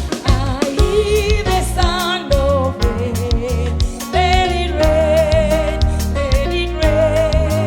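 Gospel song: a singer holding wavering, sustained notes over a band with heavy bass and a steady drum beat.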